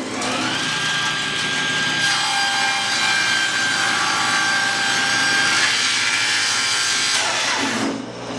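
Table saw ripping a thick reclaimed hardwood board: a steady blade whine with the rasp of the wood being cut. The board binds in the cut, and near the end the saw's pitch falls.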